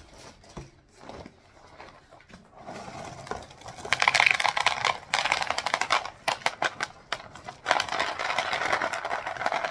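Cap'n Crunch cereal pouring from its plastic inner bag into a plastic bowl: a dense, fast rattle of hard pieces hitting the bowl, mixed with crinkling of the bag. The first few seconds hold only quieter rustling as the box and bag are handled, and the rattle starts about four seconds in.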